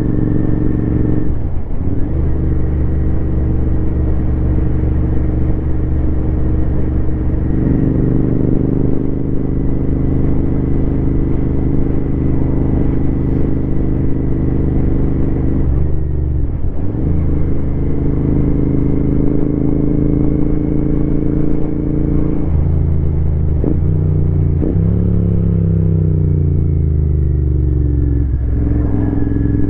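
Royal Enfield Continental GT 650's 648 cc 270-degree parallel-twin engine running on the move. The engine note breaks briefly a few times at gear changes, and revs fall for a few seconds about three-quarters of the way through as the bike slows.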